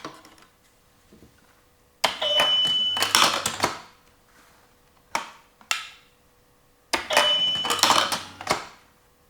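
Toy cash register sound effects: twice, a short high electronic beep runs into a burst of clicking and ringing. A couple of single plastic clicks fall between the two.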